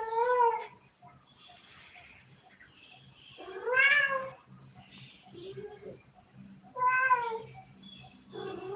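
A cat meowing over and over: four drawn-out meows about every three seconds, plus one softer, lower meow in between.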